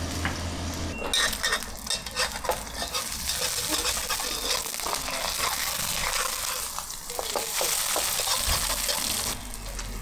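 Food sizzling and frying hard in a hot pan at a street-food stall, stirred with a metal utensil that scrapes and knocks against the pan many times. The sizzle starts about a second in and cuts off shortly before the end.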